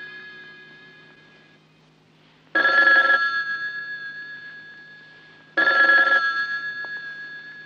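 Rotary desk telephone's bell ringing in short bursts about three seconds apart, each ringing out and fading. One ring is fading at the start, and two more follow.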